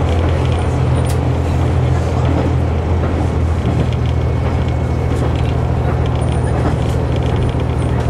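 Inside a KiHa 121 diesel railcar under way: the diesel engine drones steadily under the floor, with the even running noise of the train on the track.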